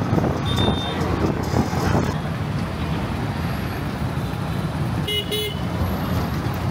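Street traffic heard from inside a moving auto-rickshaw, its engine running steadily. A vehicle horn gives two short toots in quick succession about five seconds in.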